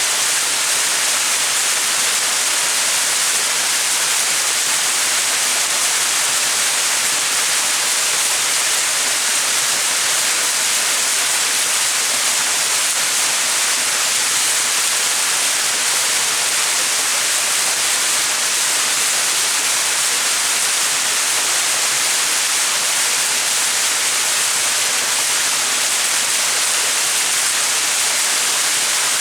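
Small mountain waterfall: a steady, unbroken hiss of falling and splashing water, bright and high-pitched.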